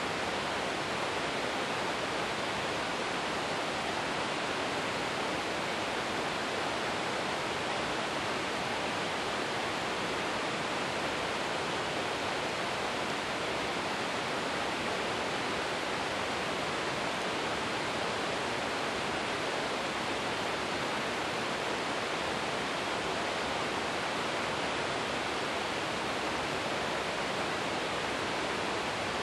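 Rain-fed stream running swiftly over granite boulders: a steady, even rush of water that does not change.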